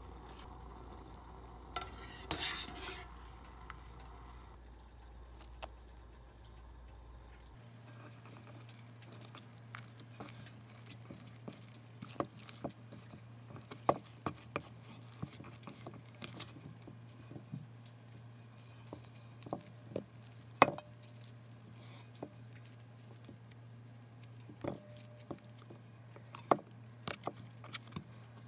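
Bare hands kneading and squeezing crumbly glutinous rice flour dough in a stainless steel bowl, with scattered sharp knocks and scrapes of fingers and dough against the metal. Before that, for the first few seconds, a pot of water on the boil.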